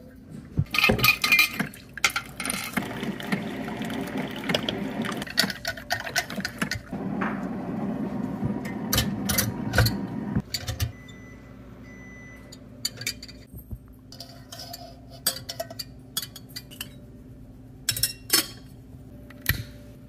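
Water being poured into the copper boiler of a Belgian balance siphon coffee maker, with metal and glass clinks from its fittings. The pouring stops after about ten seconds, leaving scattered clicks and taps.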